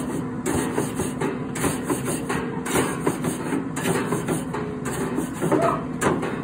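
Bristle grill brush scrubbing back and forth across the hot grate of a Traeger pellet grill, about one stroke a second, over a steady low hum. The grate has been heated to about 350 degrees to loosen stuck-on fish for cleaning.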